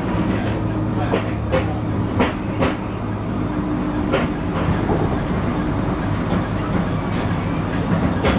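A Flexity 2 tram running along street track, heard from inside: a steady low motor hum with a few held tones, broken by irregular sharp clicks and rattles from the wheels on the rails.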